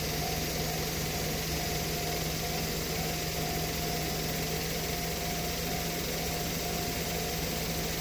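Steady, unchanging hum of an idling vehicle engine over even street noise.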